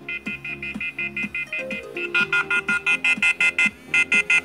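Smartphone sounding its find-my-phone alert, set off from a paired smartband: a musical ringtone of rapid beeps, about eight a second, over a stepping melody, growing louder about two seconds in.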